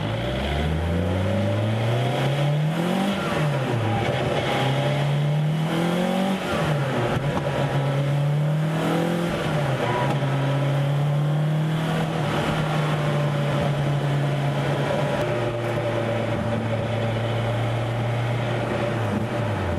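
Sports car engine accelerating up through the gears: the pitch climbs and falls back at each of three upshifts, then holds steady at cruising speed, with a brief dip near the end.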